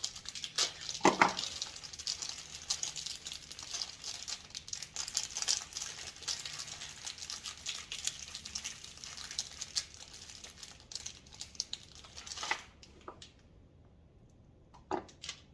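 Crinkling and rustling, like plastic packaging being handled, full of small clicks, with a few louder knocks. It stops about twelve and a half seconds in, and a couple of separate knocks follow.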